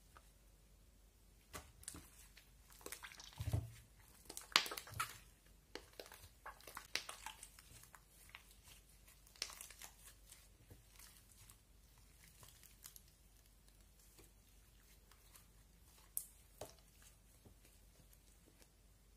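Fluffy slime mixed with shaving cream being stretched and squished by hand, giving faint irregular crackles and sticky pops. The crackling is busiest in the first half and thins out to a few pops later.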